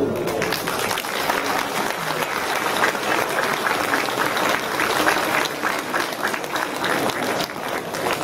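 An audience applauding: dense, steady clapping that starts as the choir's singing stops.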